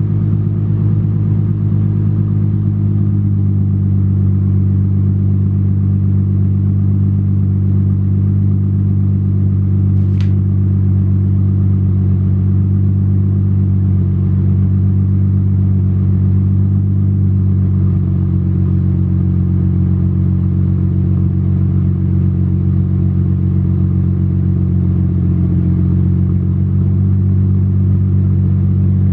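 Infiniti G37's VQ V6 engine idling steadily through a newly fitted RZG single-exit exhaust, loud inside the garage. One brief click about ten seconds in.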